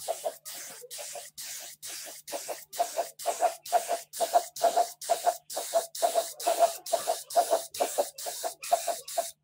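Spray gun spraying paint: a hiss with a whistling tone, in short rapid bursts about three a second, growing louder about three seconds in.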